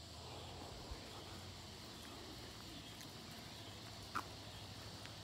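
Quiet outdoor street ambience: a faint steady low hum, with a tiny click about a second in and a brief sharp sound about four seconds in.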